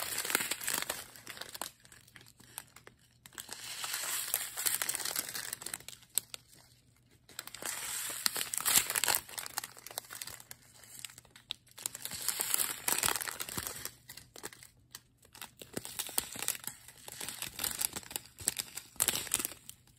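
Small clear plastic zip bags of diamond-painting drills crinkling as they are handled and turned over, in spells of a second or two with short pauses between.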